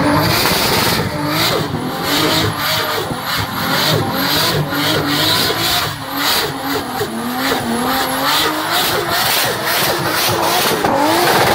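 Turbocharged Toyota Supra Mk4 straight-six held at high revs during a burnout, the revs rising and falling over and over, with the rear tyres spinning and squealing.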